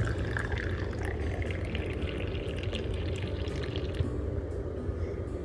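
Hot masala tea poured from a pan into a small porcelain cup, a steady stream splashing and filling it, then stopping about four seconds in. A steady low hum sits underneath.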